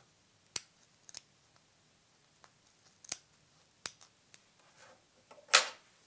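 Small scissors snipping faux fur fabric stretched over a plastic shell: a few short, sharp snips at uneven intervals, making a small slit. A louder clack comes near the end.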